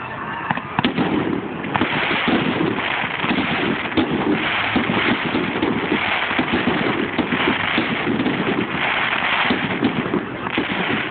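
Fireworks display in a heavy barrage: a dense, unbroken run of bangs and crackling, many bursts overlapping. Heard through a phone's microphone, so it sounds thin and band-limited.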